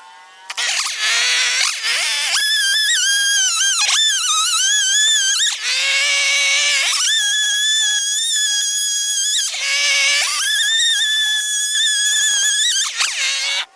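Chainsaw cutting wood: a loud, high whine that dips sharply in pitch three times and climbs back, then cuts off suddenly near the end.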